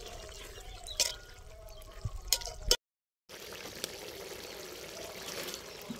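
A metal ladle stirring thin, simmering gravy in an aluminium pot: liquid sloshing and trickling, with a few sharp clinks of the ladle against the pot. The sound drops out completely for about half a second just before the three-second mark.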